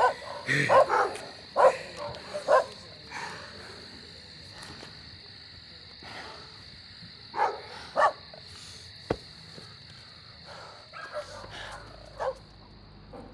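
A dog barking now and then, short single barks a second or several apart, over a steady high-pitched whine of night ambience.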